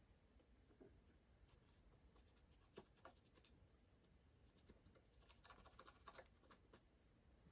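Near silence, with faint scratching and a few light ticks, most of them about five and a half to six seconds in: wood glue being worked down into a chip in a wooden skateboard deck.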